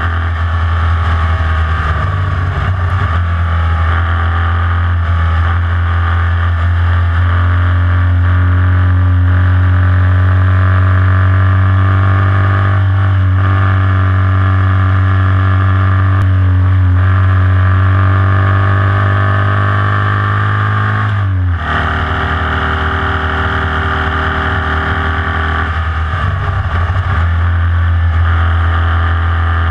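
In-car sound of a Formula Vee's air-cooled Volkswagen flat-four racing engine running hard at a steady high pitch. About twenty-one seconds in, the note drops sharply and briefly breaks off, then picks up again.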